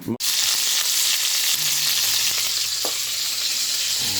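Loud, steady sizzling hiss that starts abruptly just after a cut and runs without letting up.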